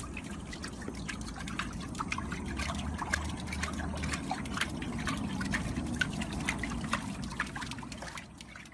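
Water splashing and trickling as a small Chihuahua paddles its legs in a shallow paddling pool, with many small splashes and drips. It fades out near the end.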